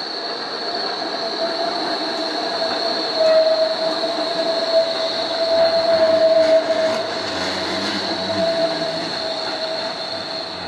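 Yellow low-floor tram rounding a tight curve, its wheels squealing on the rails in one steady high tone that swells a few seconds in and fades near the end, over a low rumble as the cars pass.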